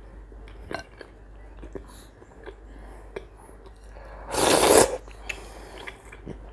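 Eating sounds at a table: a few faint clicks of a spoon and chewing, then about four seconds in one short, loud slurp of cabbage soup off a spoon, lasting about half a second.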